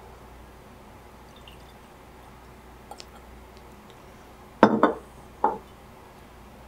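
A glass whisky bottle set down on a tabletop: a short clattering knock a little past halfway, then a lighter knock about a second later.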